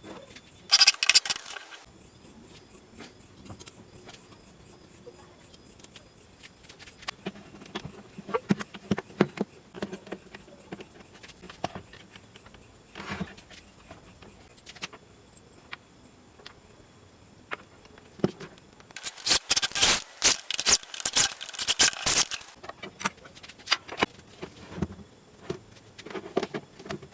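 Irregular clusters of sharp clicks and knocks, the loudest and densest flurry about two-thirds of the way through, over a steady high insect drone.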